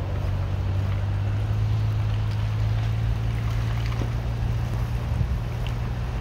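Car driving slowly, heard from inside the cabin: a steady low engine hum with road noise from the tyres.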